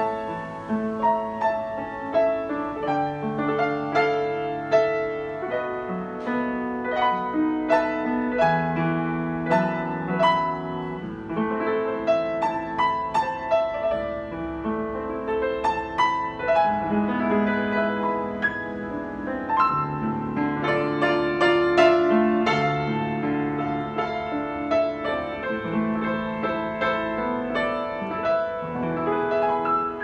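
Yamaha U30 upright piano played with its front panels off, hammers and strings exposed: a continuous flowing passage of chords and melody with sustained notes.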